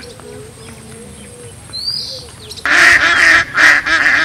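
Ducks quacking loudly in a quick run of about five calls, starting suddenly about two-thirds of the way in. Before that, only a few faint chirps of small birds.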